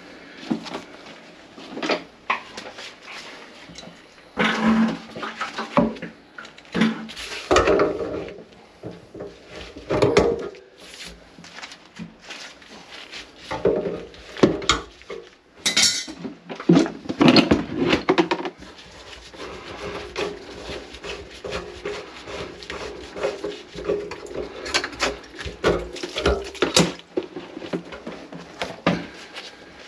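Irregular clatter and knocks of hard objects being moved about and set down, such as pots and a bucket. A steadier low hum joins in for the second half.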